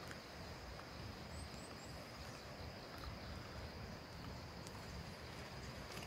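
Steady, high-pitched chorus of insects over a low outdoor rumble, with a few short, faint chirps about a second and a half in.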